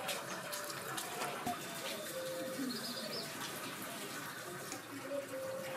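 Fingers mixing and scooping rice and curry on steel plates, a run of soft clicks and wet sounds, with faint bird calls in the background.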